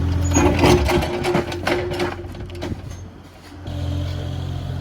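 Diesel engine of heavy equipment running under a rapid series of clattering, crunching knocks, typical of concrete being broken up and moved. About three seconds in, the sound drops away briefly, then a steady engine hum comes back at a different pitch.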